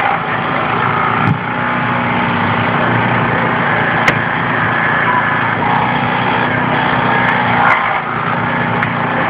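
Small petrol engine of a hydraulic rescue-tool power unit running steadily during a car extrication, with a few short sharp clicks about a second in, midway and near the end.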